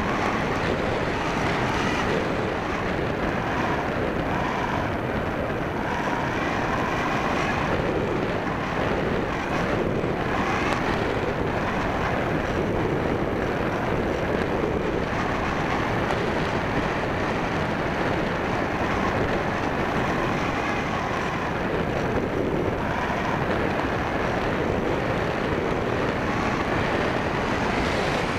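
Steady rush of wind over the onboard camera of an E-Uhu electric RC model glider in flight, with a faint tone that wavers up and down now and then.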